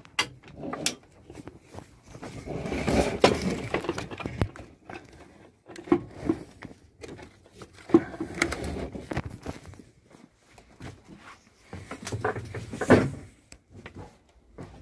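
Irregular clunks, knocks and scraping from hand work on a car gearbox as it is fitted, with the loudest knocks about three, eight and thirteen seconds in.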